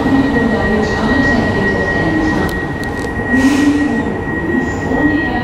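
Escalator running: a steady mechanical rumble with a constant high-pitched whine and a slow, regular rise and fall underneath.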